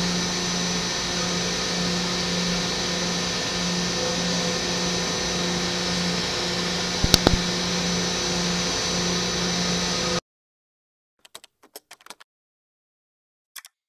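DMG Mori NTX 1000 CNC mill-turn centre cutting under flood coolant: a steady hiss of spraying coolant with the machine's running hum and constant high whine tones, and a couple of sharp clicks about seven seconds in. The sound cuts off suddenly after about ten seconds, leaving only a few faint short clicks.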